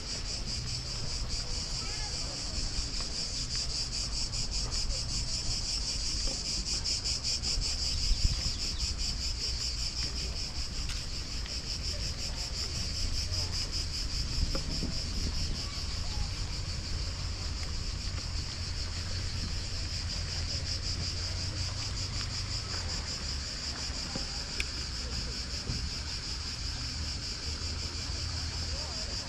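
Steady, high-pitched chorus of insects in the park trees, with a fast pulsing that does not let up.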